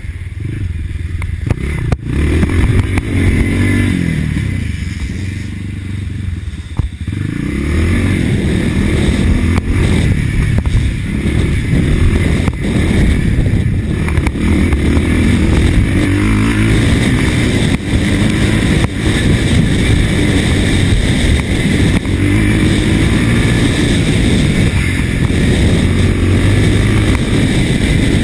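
Motocross motorcycle's two-stroke single-cylinder engine revving up and down under hard riding. The throttle eases off briefly a few seconds in, then the engine runs louder again.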